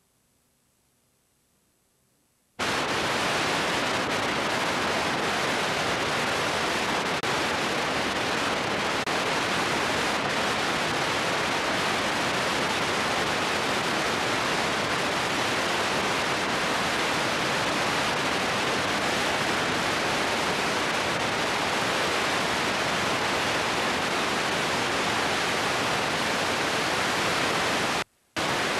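Static hiss from a blank, unrecorded stretch of videotape. Near silence for about two and a half seconds, then a loud, steady hiss starts abruptly. It cuts out for a moment near the end and then comes back.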